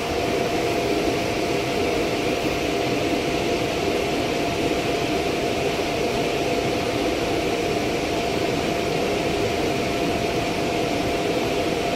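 Steady whir and hum of a Brasília Metro Série 1000 train's equipment as it stands at the platform, with a steady whine running through it.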